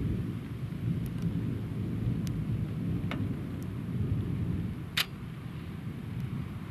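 Rolling thunder: a long, low rumble that eases off about five seconds in. A few sharp clicks sound over it, the loudest about five seconds in.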